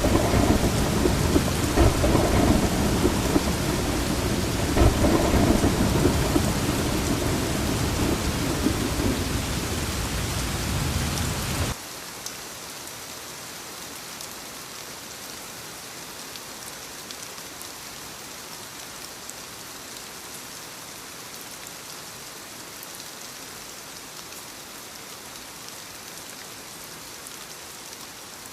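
Rain falling with rolling thunder, which stops abruptly about twelve seconds in, leaving only a steady, lighter patter of rain.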